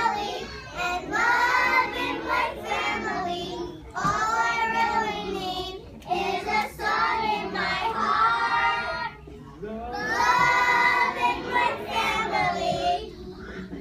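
A group of young children singing a song together, in short phrases with brief pauses between them.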